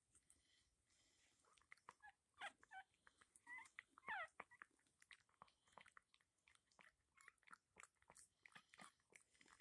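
Newborn puppy giving a few short, high squeaks about two to four seconds in, the loudest sliding down in pitch as it is handled, over faint scattered clicks and rustles of the puppies moving on the bedding.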